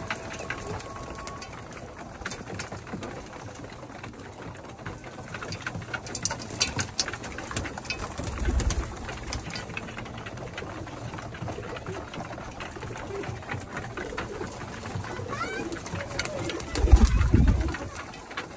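A flock of domestic pigeons cooing while they peck at feed, with scattered sharp clicks around six to seven seconds in. Two short, loud low flurries of noise stand out, one about eight seconds in and a louder one near the end.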